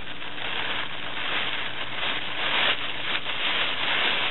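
Thin plastic grocery bag crinkling and rustling as hands pull it open, the rustle swelling and easing irregularly and loudest about two and a half seconds in.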